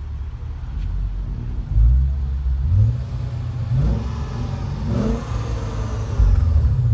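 2015 Hyundai Genesis 5.0's V8 exhaust, the engine revved up from idle several times in short blips, its pitch rising with each rev.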